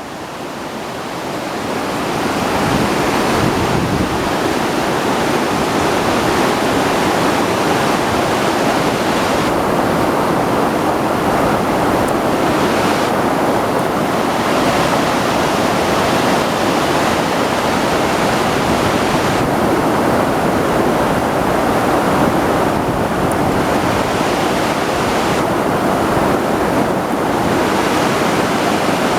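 River rapids rushing steadily, a loud, even roar of water that grows louder over the first few seconds; the river is running full after heavy rain.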